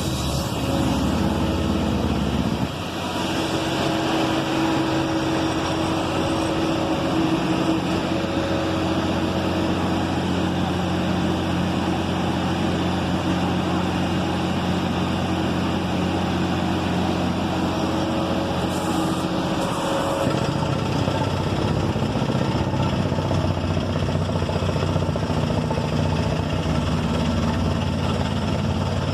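Scania electronic diesel engine running steadily. Its tone changes briefly about three seconds in and shifts again about twenty seconds in.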